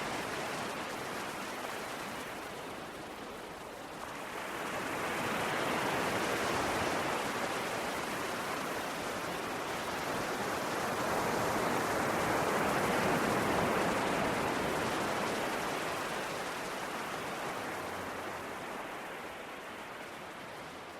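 Ocean waves washing onto the shore: a steady rush of surf that swells about four seconds in and again around twelve seconds, then slowly eases off.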